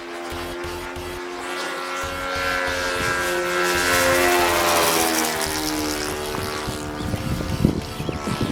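Saito 100 four-stroke glow engine of an RC model airplane flying past at part throttle. It grows louder, peaks about halfway through, then drops in pitch and fades as the plane passes and moves away.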